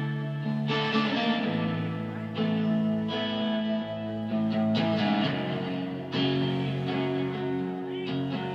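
Live rock band in an instrumental passage: electric guitar strumming ringing chords, a fresh chord struck every second or so, over a full low end.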